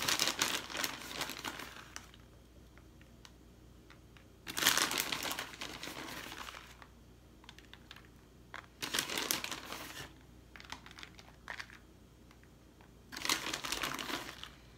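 Plastic bag of shredded cheese crinkling in four separate bursts as it is handled and cheese is pinched out and sprinkled.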